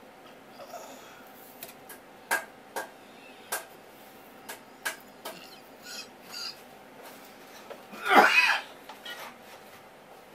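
Light taps and soft wet slaps of raw spear squid mantle being handled and laid out on a wooden cutting board, with one louder, longer rustling smack about eight seconds in.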